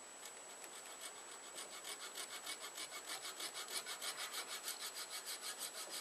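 Small hand saw cutting the blade slot into an antler knife handle, with quick, even back-and-forth strokes, about four or five a second, settling into a steady rhythm about a second in.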